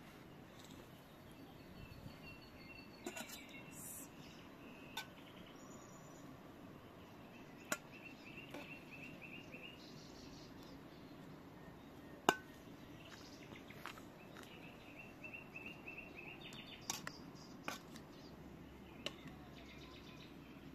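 Metal spatula clinking and scraping against a pot and a metal plate as steamed rice is scooped out: a few sharp clinks spread through, the loudest about twelve seconds in. Small birds chirp in short runs of quick repeated notes in the background.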